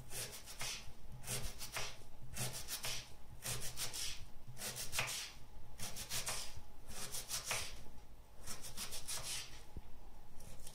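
Kitchen knife dicing an onion on a wooden cutting board: repeated bursts of several quick cuts, roughly one burst a second, each cut a sharp tap of the blade through the onion onto the wood.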